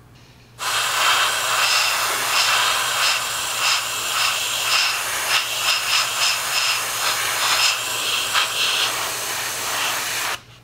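Airbrush hissing steadily as it sprays a coat of hairspray over a plastic scale model, the chipping layer laid under a lighter top coat. The hiss starts about half a second in and stops just before the end.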